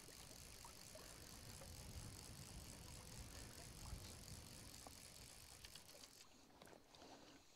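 Near silence: faint outdoor ambience with a low, uneven rumble of wind on the microphone.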